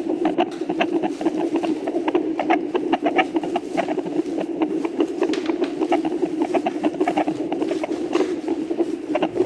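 Heartbeat picked up by a Doppler ultrasound monitor: fast, even pulses of whooshing over a steady hiss.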